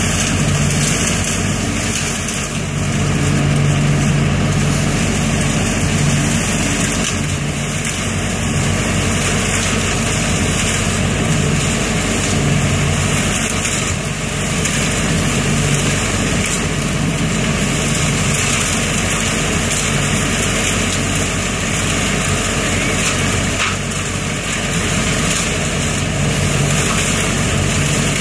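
ODB 650 trailer-mounted leaf vacuum running steadily, its engine and fan drone mixed with the rush of leaves being drawn up the intake hose and blown into the truck's box. The low engine hum swells and eases every few seconds as the load of leaves changes.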